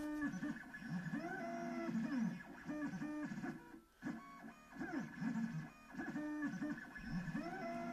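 The stepper motors of a Shapercube machine drive its carriage back and forth on newly fitted IGUS plastic linear bearings. They make a pitched whine that rises and falls with each move, in quick moves one after another, with a brief pause about four seconds in.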